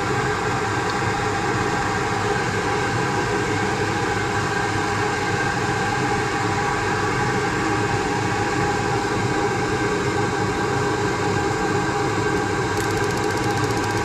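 Draft inducer motor of a 90%-plus gas furnace running, a steady hum of several tones. It pulls its draft normally, while the bad pressure switch it should close stays open.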